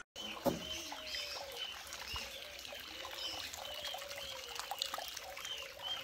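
Birds chirping in short calls, about two a second, over a steady trickle of water.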